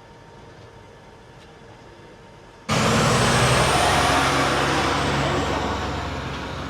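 A faint steady hum, then about two and a half seconds in a heavy diesel engine comes in suddenly and loud, running with a thin high whine that rises and then falls, easing off a little toward the end.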